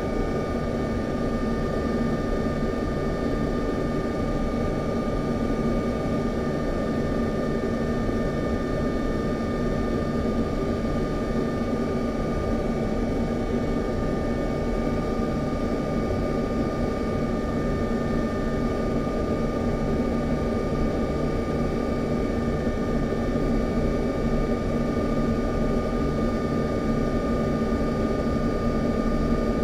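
Steady cockpit noise of a U-2 in flight: the jet engine and rushing air make an even rumble and hiss, with a steady whine of several high tones on top.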